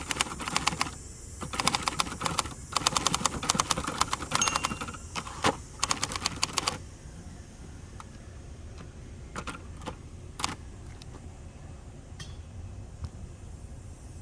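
Typing on a 1967 Hermes 3000 manual typewriter: a rapid run of keystrokes with two brief pauses, stopping about seven seconds in, then only a few scattered single clicks.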